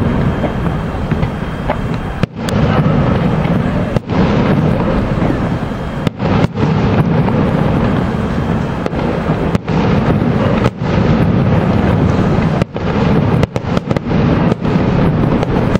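Aerial fireworks display: a dense, continuous barrage of shell bursts and rumbling booms running into one another. The sound briefly cuts out several times.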